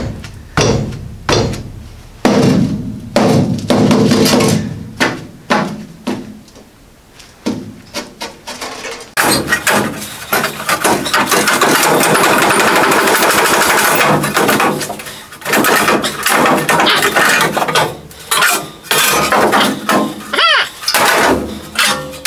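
Pneumatic air chisel hammering through a car's steel floor pan in bursts, the longest running for several seconds about halfway through, with separate clanks of sheet metal between bursts.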